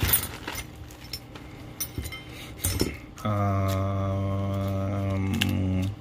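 Clear plastic bag crinkling and rustling as small parts are handled, then a man's long hum on one low, steady note for about two and a half seconds, stopping just before the end.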